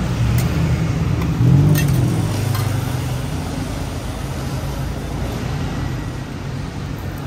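Street traffic: a motor vehicle's engine rumbling close by, with the rumble slowly fading over the next few seconds.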